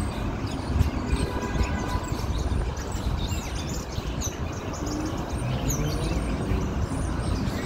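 Busy city street ambience: a steady low rumble of traffic, with faint short high chirps here and there.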